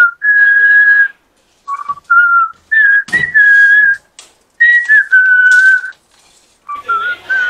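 A person whistling a tune in short, clear, held phrases, with gaps between them. A sharp click comes about three seconds in.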